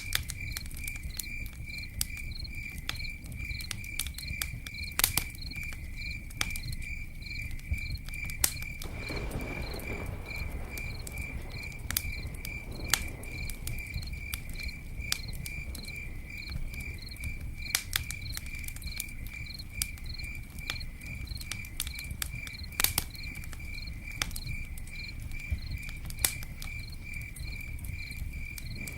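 Campfire crackling with scattered sharp pops, a few much louder than the rest, over a low steady rumble. A cricket chirps steadily, about three even chirps a second, on one high pitch. A brief soft whoosh comes about a third of the way through.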